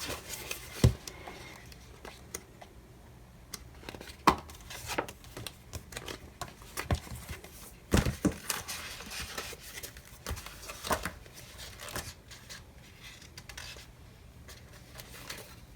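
Paper handling: sticker book pages being turned and sticker sheets rustled, with scattered light taps and clicks on the desk.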